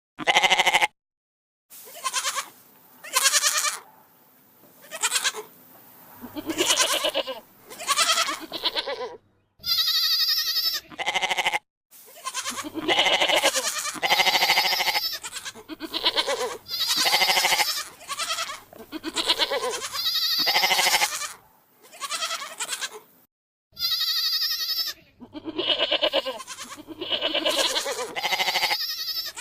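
Goat and ibex bleats, many separate calls one after another, some high and clearly pitched, with sudden drops to dead silence between some of them.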